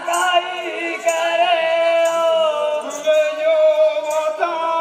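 Folk singing in long, held, wavering notes over a steady sustained tone, with faint light strikes here and there.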